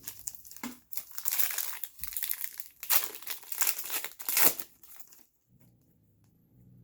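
Crinkling of a trading-card pack's foil wrapper being handled, in bursts of crackling for about four seconds, stopping near the end.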